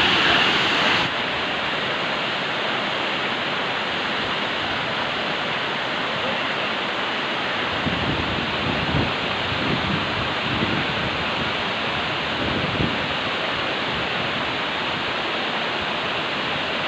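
Waterfall's steady rush of falling water, an even loud noise that hardly varies. About halfway through, wind buffets the microphone with some low, uneven gusts.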